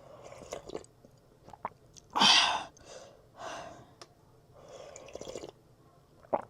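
Person chewing and eating a rice, curry and chicken meal: irregular wet mouth sounds and small clicks, with a louder short burst about two seconds in.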